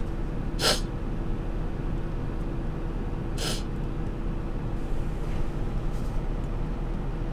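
A woman sniffs twice, sharply and briefly, about three seconds apart, over the steady low hum of a car's cabin.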